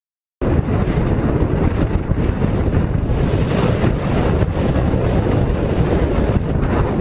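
Strong blizzard wind buffeting the microphone: a loud, dense rushing noise, heaviest in the low end, cutting in abruptly about half a second in after a moment of silence.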